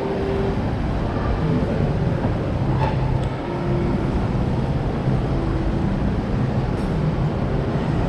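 Steady shopping-mall ambience: a low, even background rumble with faint, brief snatches of distant voices.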